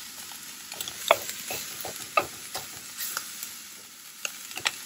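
Food sizzling steadily in a very hot wok while it is stir-fried, with a spatula scraping and tapping against the pan at irregular moments, the sharpest about a second in, just after two seconds and near the end.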